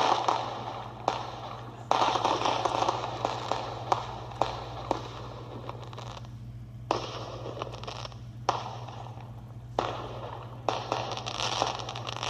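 Consumer fireworks going off: spurts of hissing and crackling, each a second or more long with short pauses between, with sharp pops through them.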